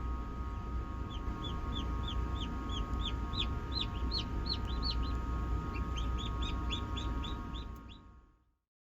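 Newly hatched cheonggye chicks peeping, about four short falling peeps a second, over a steady hum from the incubator. All sound cuts out shortly before the end.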